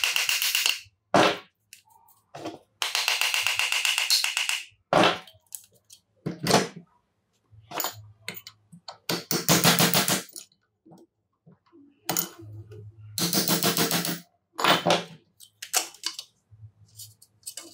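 A small hammer striking the demolition hammer's metal motor housing in several runs of rapid blows, with single knocks between them, to knock the rusted stator loose from the housing.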